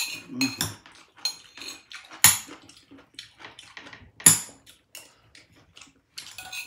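Cutlery clinking and scraping against a plate while eating, with a few sharp clinks about two seconds apart and many lighter taps between.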